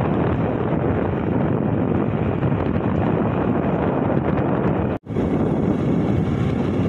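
Wind blasting over the microphone of a moving motorbike, a loud steady rush of air that briefly cuts out about five seconds in and then resumes.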